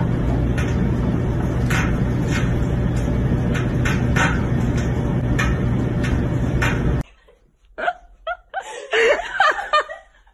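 A loud steady noise with a low hum and scattered light clicks, cutting off about seven seconds in; then a woman laughs in short bursts.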